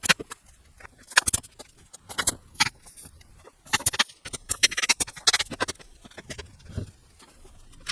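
Irregular clicks, knocks and short scrapes of hand work on the wooden rack parts, at an uneven pace with no steady rhythm.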